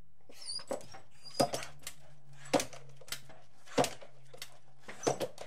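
A dog's short, sharp barks, about one every second and a quarter, over a low steady hum.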